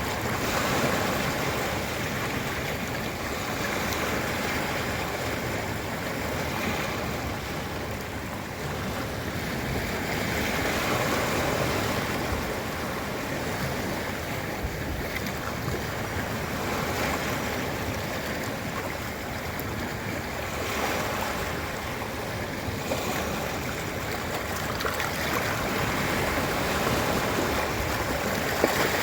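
Ocean surf washing onto a beach: a steady rush of waves that swells and eases every few seconds.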